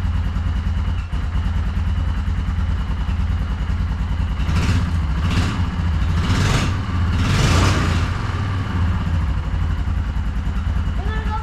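Yamaha Kodiak 450 ATV's single-cylinder engine running steadily after its gummed-up carburetor was cleaned, with four short louder surges in the middle.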